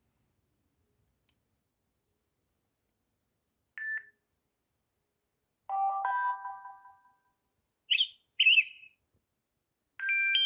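Samsung Galaxy A3 (2015) built-in tones played one after another, with silence between them: a short beep about four seconds in, a chime of several notes near six seconds, two quick high chirps around eight seconds, and another chime starting near the end.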